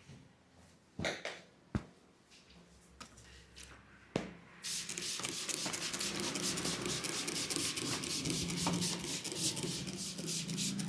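Hands rubbing and massaging a man's scalp and hair: a fast, dense rustling of rapid strokes that starts abruptly nearly halfway in and keeps going. Before it, a few sharp isolated clicks.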